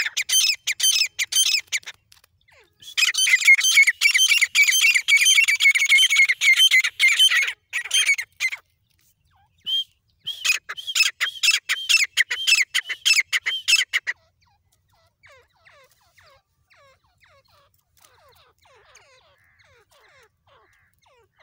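Grey francolin calling: loud, fast runs of shrill repeated notes in three bouts, then only faint scattered calls in the last few seconds.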